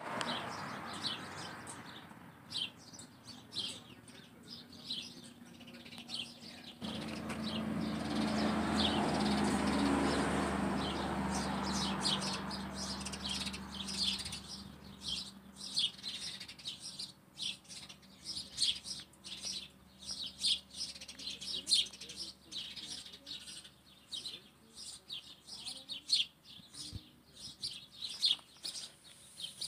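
Small birds chirping and twittering in many short high calls. In the middle a low steady hum with a rushing noise swells for several seconds and then fades.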